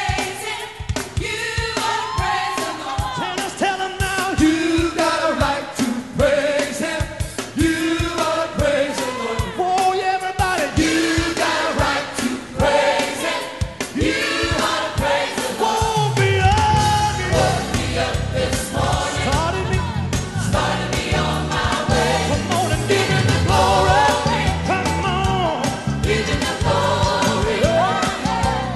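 Gospel praise team singing together with a band, over a steady beat; a low bass line comes in about halfway through.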